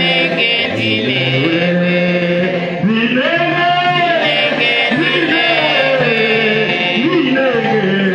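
A man's voice singing a chant-like melody into a microphone over a PA, with long held low notes underneath; the voice slides up and down between held phrases.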